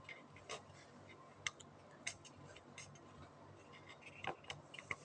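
Faint, scattered sharp clicks and ticks of hard 3D-printed PLA+ plastic being handled as small print flaws are picked off the case, about half a dozen at irregular intervals.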